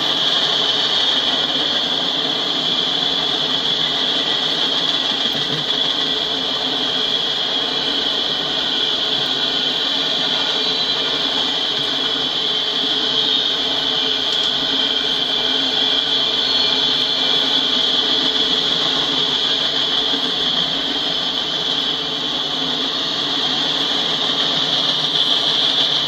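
Loaded Norfolk Southern coal hopper cars of a freight train rolling past: a steady grinding of steel wheels on rail, with a high ring over it, picked up by a trackside webcam microphone.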